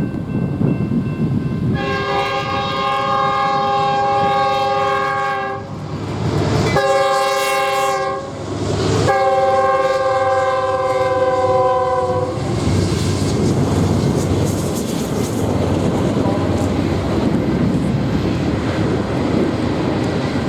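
Locomotive air horn sounding a multi-note chord in three long blasts, with short breaks between them. Under it a passing train rumbles, and the steady rumble of train and wheels on rail carries on after the horn stops.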